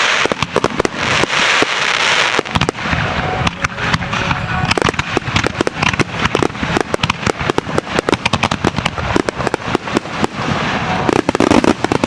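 Aerial fireworks in a starmine barrage: a dense run of sharp shell bursts and crackling, several reports a second, over a hissing crackle that is heaviest in the first couple of seconds.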